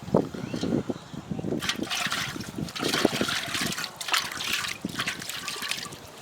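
Water splashing and trickling in irregular surges, several in a row.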